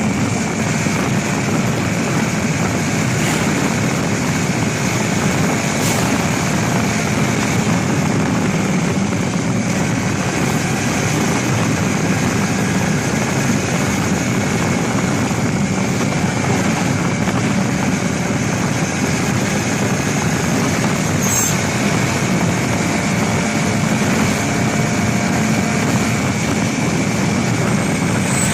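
Honda CBR250RR sport bike on its stock exhaust, the engine running at a steady, unchanging pitch with no revving.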